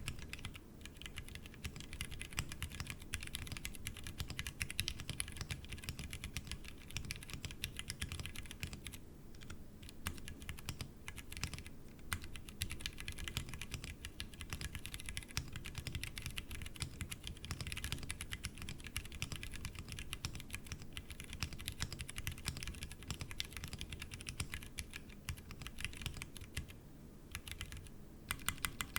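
Steady typing on a Tofu60 mechanical keyboard with stock Cherry MX Brown tactile switches, sitting on the bare desk without a desk mat: a continuous stream of keystroke clacks with a few brief pauses.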